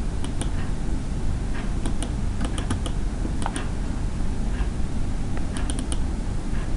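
Scattered light clicks of a computer mouse and keyboard, irregular and sometimes in quick pairs, over a steady low hum.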